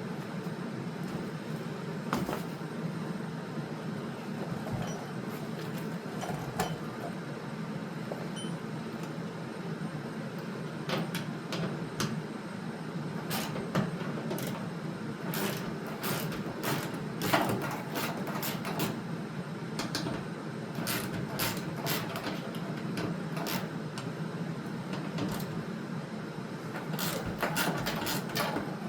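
Scattered metallic clicks and knocks of hand tools and hardware, coming in quick clusters through the second half, over a steady low hum.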